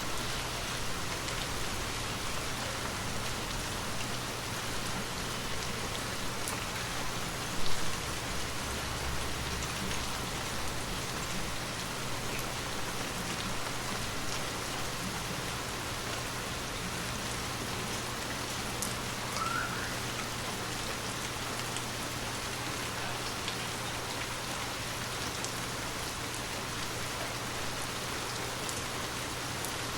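Steady gentle rain falling and pattering on surfaces. A brief louder thump comes about eight seconds in, and a faint short rising chirp about twenty seconds in.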